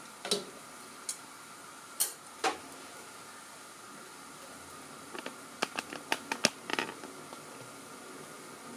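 Light metallic clicks and knocks of kitchen utensils and cookware over a steady faint hum. There are a few single clicks in the first few seconds and a quick run of clicks a little past the middle.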